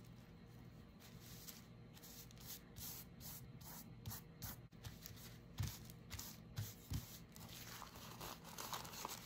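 Faint rustling of a thin paper napkin being smoothed down by hand onto a paper envelope, with a few soft knocks in the middle. Louder crinkling near the end as the envelope is picked up and the napkin handled.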